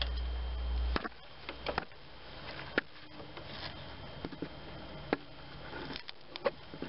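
Scattered, irregular light clicks and knocks of a quarter-inch drive socket wrench being worked on an EGR valve mounting bolt, with a low rumble during the first second.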